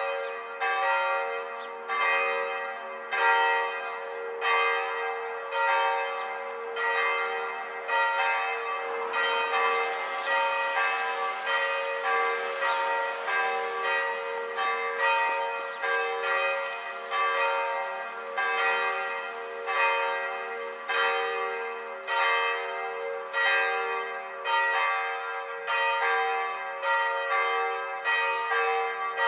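Church bells pealing, several bells struck in turn at roughly one stroke a second, each ringing on. A car drives over the crossing about ten seconds in, its tyre noise rising under the bells.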